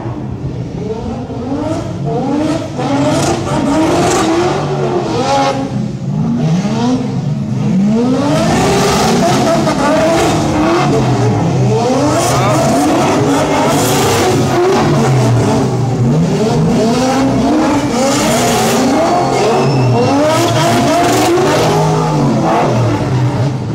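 Drift cars' engines revving hard, the pitch sweeping up and dropping back over and over as the cars slide around a wet track in tandem. It gets louder about eight seconds in, as the cars come nearer.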